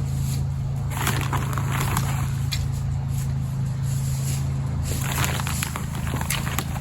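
Scratching and rustling of soil being worked by hand in a garden bed, coming in two spells, over a steady low hum.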